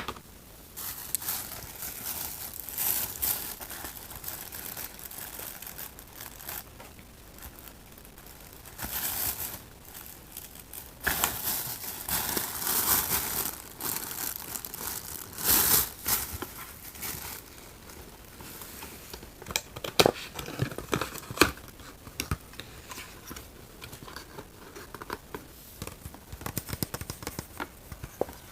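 Candy packaging being crinkled and torn open by hand: irregular bursts of wrapper rustling and tearing, with a few sharp clicks and snaps near the end.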